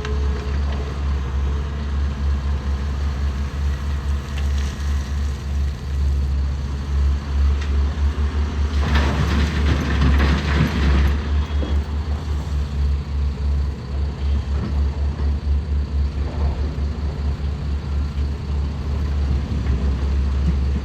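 Heavy diesel machinery running with a deep, pulsing drone, and a louder rattling rush lasting about two seconds near the middle.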